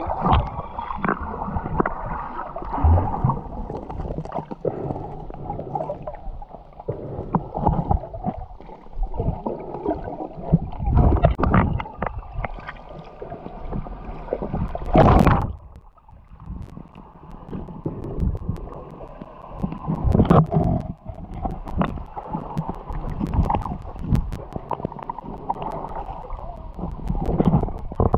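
Muffled underwater noise of water gurgling and churning around a submerged camera, in uneven surges with scattered knocks; the loudest surge comes about halfway through.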